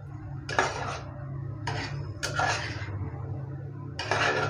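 Metal spatula scraping against a steel cooking pot while prawns in thick masala are stirred, four short scrapes over a steady low hum.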